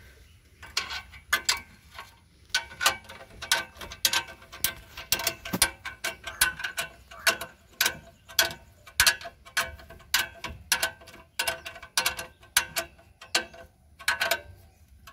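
Ratchet wrench clicking in short repeated strokes as it tightens the bolt that fixes a two-stroke three-wheeler's silencer to the engine.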